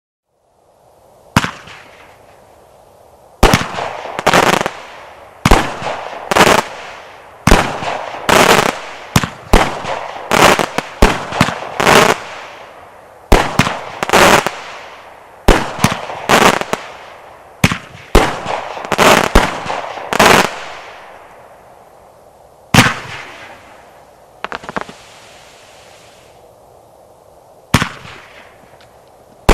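Multishot firework cake firing, an 81-shot barrage: a sharp launch or burst bang roughly every second, each followed by a crackling, fizzing tail.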